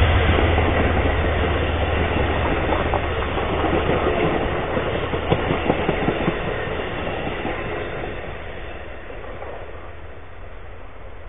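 A passenger train passing close by: the diesel locomotive's steady low engine hum at first, then the coaches' wheels clattering and clicking over the rails, fading away over the last few seconds.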